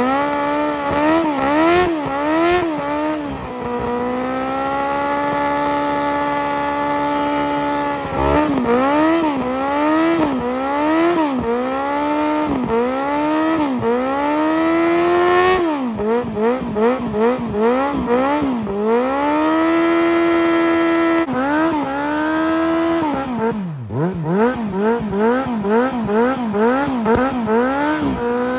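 Kawasaki ZX-9R's inline-four engine revving hard through a burnout with the rear tyre spinning: quick rises and falls in revs about once a second, broken by longer stretches held at high revs, with a brief drop in revs near the end.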